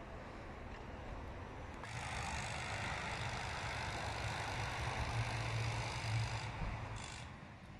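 A road vehicle driving past, swelling about two seconds in and fading away near the end.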